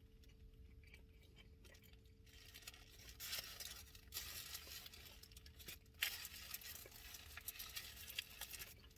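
Faint crackly noises of a dripping sandwich being handled and bitten into, starting about two seconds in, with a sharp click about six seconds in. A faint steady hum runs underneath.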